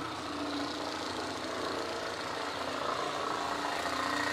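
Motor-driven maintenance machinery running steadily, a continuous engine-like hum that grows a little louder toward the end.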